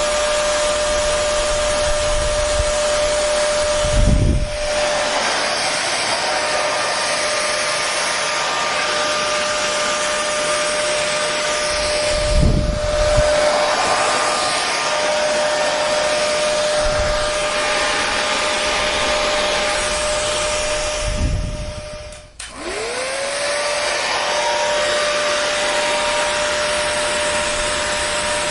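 Hair dryer blowing steadily, a rush of air with a steady motor whine, and a few brief low rumbles of air on the microphone. A little over 20 s in, the sound drops out for a moment and the motor whine climbs back up to speed.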